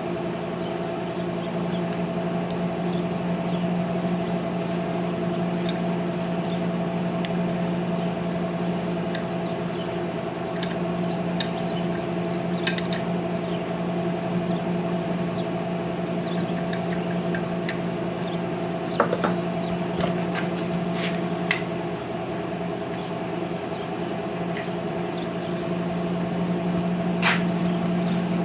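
Steady electrical hum with scattered light metallic clicks and ticks.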